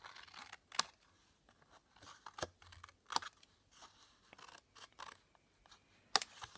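Small scissors snipping through white cardstock, cutting off small overhanging tabs: a handful of sharp, separate snips at uneven intervals, the loudest near the end.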